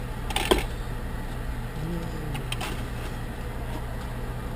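Steady low hum of an idling car heard inside the cabin, with a few short rustles and clicks as a paper straw wrapper and plastic drink cup and lid are handled. The sharpest is about half a second in, and there are two lighter ones around two and a half seconds in.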